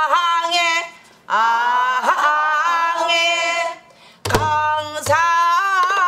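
A woman singing a danga phrase in pansori style, in three long phrases with wavering, bending held notes and short breaths between. A single buk drum stroke lands about four seconds in.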